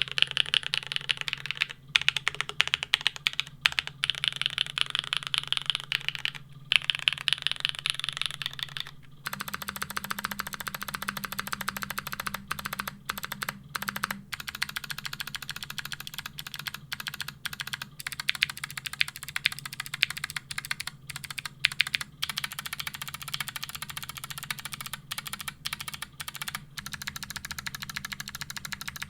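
Continuous fast typing on a custom mechanical keyboard, a Geonworks W1-AT. About nine seconds in it switches to a Geonworks F1-8X V2, with a different run of key clacks.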